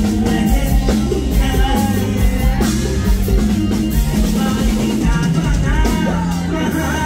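A Thai luk thung song played live by a band, with a steady drum-kit beat and bass under a man singing the lead into a microphone.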